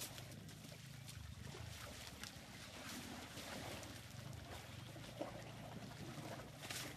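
Muddy water sloshing and splashing faintly as elephant calves wallow in a shallow mud pool, over a low steady hum.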